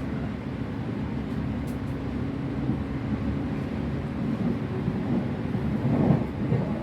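Running noise inside an electric train carriage between stations: a steady low rumble with a humming drone, swelling briefly near the end.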